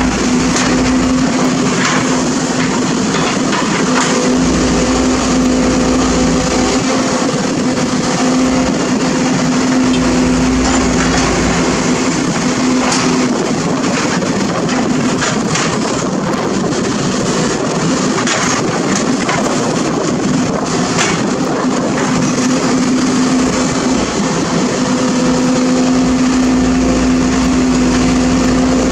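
Sumitomo SH210 hydraulic excavator running as it digs and levels soil: a steady diesel and hydraulic hum that eases off in the middle and comes back strongly near the end, with a low rumble swelling under load and occasional short knocks.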